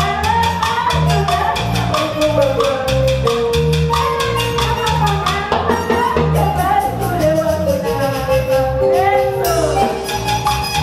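A live band playing a Latin dance song: a woman sings a melody into a microphone over electric bass, acoustic guitar and drums, with a fast, steady percussion beat.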